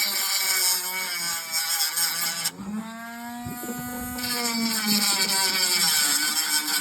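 Handheld electric power tool running under the trigger, its motor whine bending in pitch; about two and a half seconds in it slows to a lower hum, then speeds back up at about four seconds.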